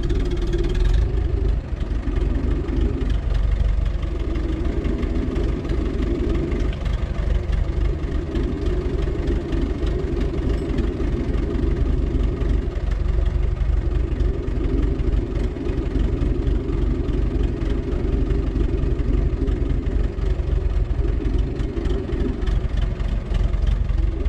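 Diesel engine of an Ostrówek K-162 backhoe loader running at idle, a steady low rumble with a mid-pitched hum that comes and goes every few seconds.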